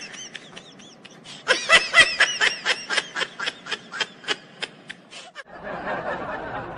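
A man's hearty laughter: a rapid string of high-pitched laughs, about four a second, that thins out and stops about five seconds in.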